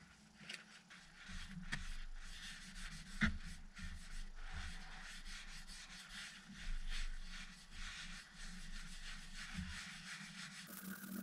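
Blue shop towel rubbing against a zebrawood platter turning on a wood lathe, a steady scratchy rub with small ticks, as finish is wiped onto the wood. A steady low hum runs underneath.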